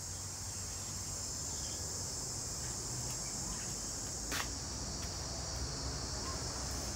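Steady high-pitched chorus of insects, with a single sharp click about four seconds in.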